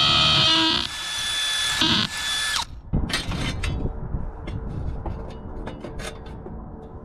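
Power drill whining steadily while boring pilot holes, stopping about a second in, then a short second burst that winds down as the trigger is released. After that come light scraping and scattered clicks.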